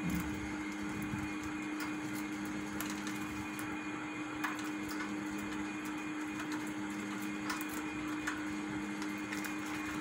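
Steady low hum with a few scattered light clicks and taps, from budgerigars moving about and pecking in a wire cage.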